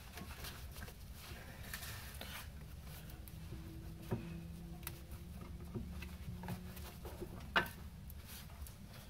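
Quiet handling noise from a rubber trailing-arm bushing being worked into the rear axle bore by hand: a few light clicks and taps, the sharpest near the end, over a low steady hum.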